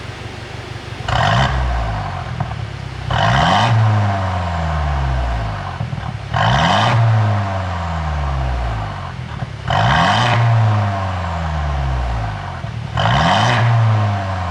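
Mercedes-Benz W205 C200's turbocharged four-cylinder engine blipped five times, about every three seconds, the revs falling back after each. Each blip carries a short burst of exhaust popping and crackling from a pop-and-crackle tune.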